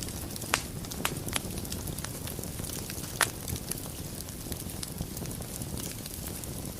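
Wood fire burning in a fireplace: a steady low rumble of flames with irregular sharp crackles and pops, the loudest pops about half a second and three seconds in.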